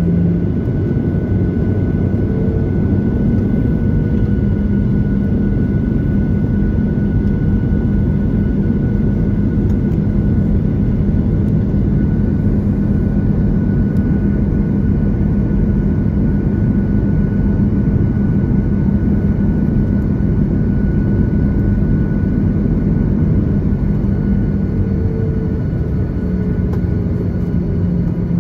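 Boeing 737 MAX 8's CFM LEAP-1B turbofan engines at low taxi power, heard inside the cabin over the wing: a steady hum and rumble as the jet taxis onto the runway. The pitch of the hum shifts slightly near the end.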